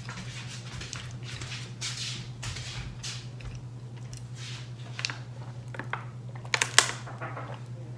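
Close-miked drinking from a plastic water bottle: soft swallowing noises, then small sharp clicks and crackles, the loudest a cluster about seven seconds in. A steady low hum runs underneath.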